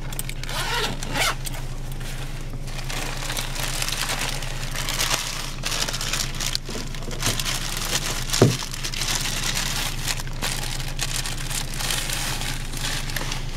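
Plastic bag and costume fabric rustling and crinkling as they are handled and pulled about, with one sharper knock about two-thirds of the way through, over a steady low hum inside a car.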